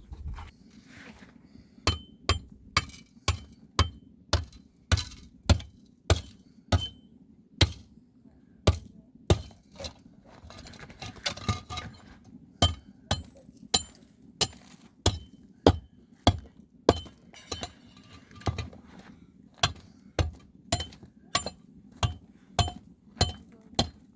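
A steady series of sharp knocks, about two a second, some with a slight ring, over a low steady hum.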